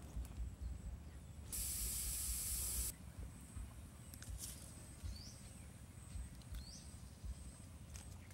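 Steam hissing out of a bamboo cooking tube over a small wood fire: one loud, even hiss of about a second and a half that starts and stops abruptly, with a few faint crackles from the fire. Two short rising chirps come later.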